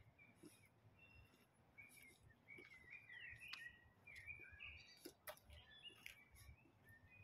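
Faint birdsong: many short chirps and whistled notes, busiest about three to four seconds in, with a few sharp clicks among them.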